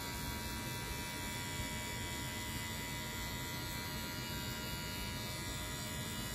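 Cordless electric hair clipper running with a steady buzz as it cuts hair at the side of the head, its blade lever set closed for shaping the corners.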